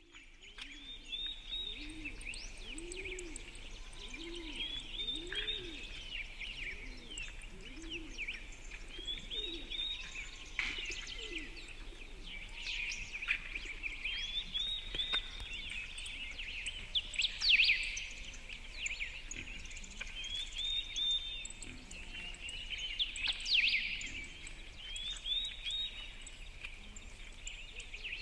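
Birds singing and chirping, one repeating a short high phrase every few seconds among many quick chirps, with a low repeated cooing in roughly the first eight seconds.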